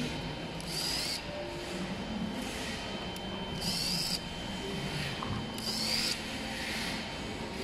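Cordless drill/driver running in three short bursts of about half a second each on scooter screws, each burst a brief motor whine.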